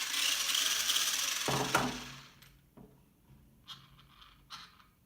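RC truck's electric motor and gear drivetrain running for about two seconds, spinning the wheels without load, then stopping. A few light clicks follow.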